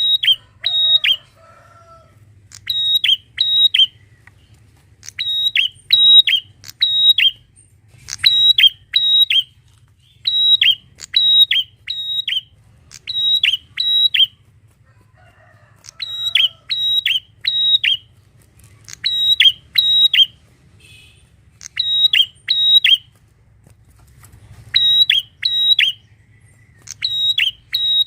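Bar-winged prinia (prenjak) calling: loud, sharp, high notes in quick runs of two to four, a run about every two seconds.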